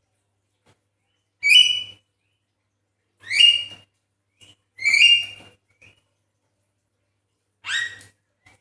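Javan myna calling: four loud, short whistled calls, each sweeping upward, spaced about two seconds apart, with a few faint short notes in between.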